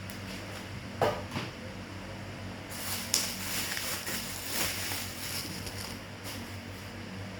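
Handling noises over a steady low hum: a sharp knock about a second in, then a few seconds of rustling with a sharp click near the start of it.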